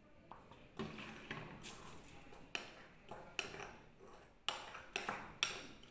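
Metal spoon stirring a wet paste of sugar and baking soda in a small ceramic bowl: gritty scraping broken by sharp, irregular clinks of the spoon against the bowl's rim and sides.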